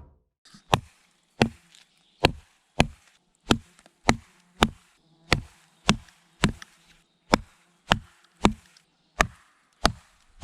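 A knife blade chopping into wood: about fifteen sharp, evenly paced strikes, roughly three every two seconds.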